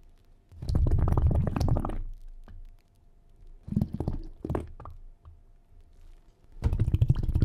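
Underwater bubbling and gurgling sound effect, coming in bursts: one about a second and a half long near the start, a shorter, broken one around the middle, and another beginning near the end.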